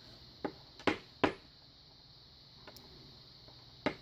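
Sharp taps and knocks, three in the first second and a half and one more near the end, from working on a lock cylinder to free a pin stuck in its chamber.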